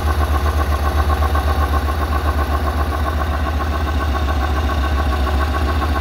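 Yamaha Road Star Warrior 1700 V-twin idling with a steady, pulsing beat through the stock exhaust, freshly fired up after years of not running. Its high idle is settling down to the speed it was set at.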